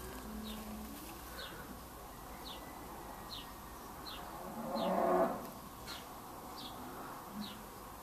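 A cow mooing once, about five seconds in, over a faint short high chirp that repeats about once a second.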